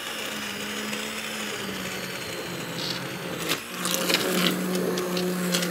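Hand-held immersion (stick) blender running in a pot of leek and burro banana soup, puréeing it smooth. Its steady motor hum drops a little in pitch partway through, dips briefly about three and a half seconds in, then runs on with a busier, crackling churn from the blade in the soup.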